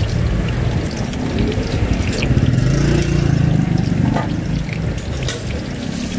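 Fishballs and kikiam deep-frying in a wok of hot oil, sizzling steadily with scattered small crackles and pops, over a steady low rumble.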